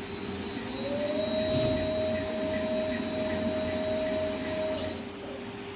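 SINMAG dough sheeter running in reverse: its motor whine rises as it spins up over the first second, then holds steady over the rumble of the rollers and conveyor belt. It cuts off with a click just under five seconds in.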